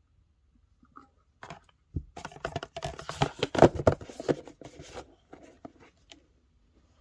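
Packaging being handled and unwrapped: a few seconds of crinkling and rustling with small clicks, busiest in the middle, then tapering off.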